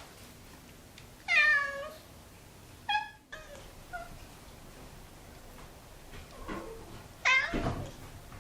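Domestic cat meowing: two loud drawn-out meows, about a second in and near the end, each falling in pitch, with a short cut-off mew near the three-second mark and a few faint mews between.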